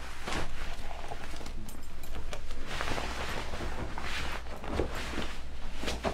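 Irregular rustling and soft knocks from people moving about, over a low steady hum.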